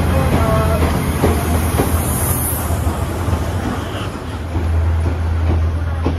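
Old-type passenger coach rolling on the rails, heard from inside the car: a steady low rumble with the wheels knocking over rail joints about twice a second, and a short hiss about two seconds in.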